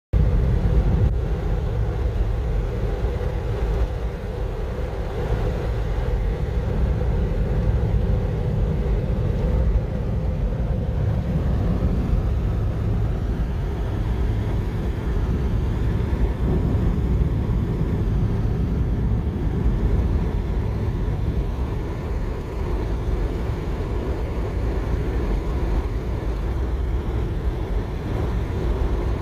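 Steady road noise inside a moving car's cabin: tyres and wind at highway speed, an even low noise with no breaks.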